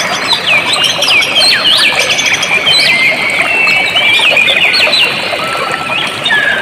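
Steady rush of flowing water with many birds chirping over it, a busy chorus of quick rising and falling calls.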